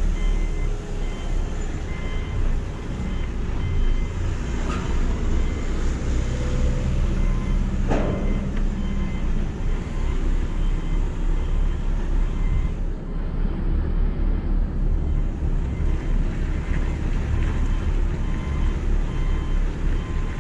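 Heavy truck's diesel engine running steadily inside the cab as the tractor-trailer drives off slowly, a low rumble with a short falling-pitched sound about eight seconds in.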